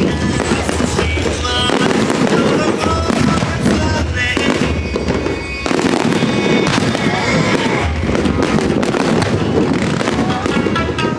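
Aerial fireworks bursting in quick succession, with a show's music playing under them.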